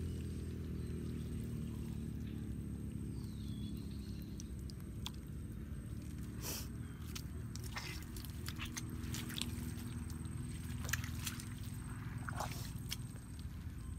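Wet mud squelching and sloshing as hands dig into a mud crab's burrow and work the crab free, with scattered sharp clicks and crackles. A low steady drone sits underneath.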